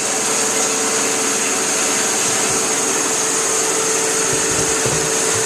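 Steady machinery hum with a constant whining tone and a high hiss, with a few low thumps near the end.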